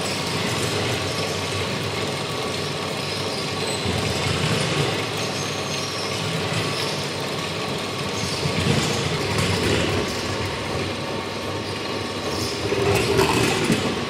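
Motor-driven kinetic sculpture of bicycle wheel rims turning on a central hub, driven by a small electric motor through cord belts: a steady mechanical whirring and rattling with a motor hum, swelling louder near the end.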